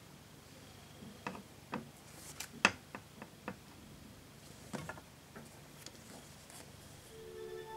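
Scattered clicks and light crinkles from a shrink-wrapped metal Blu-ray case being handled and turned over in the hands, the sharpest click a little under three seconds in. Music starts to fade in near the end.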